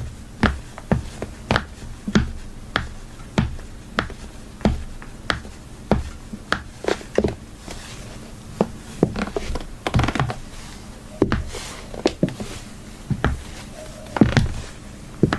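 High-heeled shoes clicking on a hard floor in steady walking steps, a little over one and a half steps a second. The steps bunch up into a few quicker, shuffling strikes about two-thirds of the way through.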